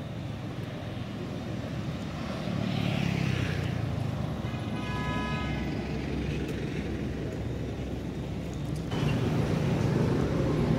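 Motor traffic going by: a steady engine rumble that swells twice as vehicles pass, with a short steady horn toot about five seconds in.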